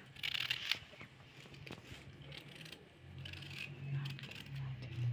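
Small kitchen knife paring the skin off a raw turnip: short, crisp scraping and slicing strokes, the strongest cluster in the first second and more toward the end.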